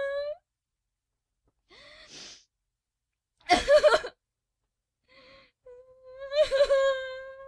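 A woman crying: a long wavering wail breaks off just after the start, then a short breath, a loud gasping sob about three and a half seconds in, and another long wail held on one pitch from about six seconds on, with silence between the cries.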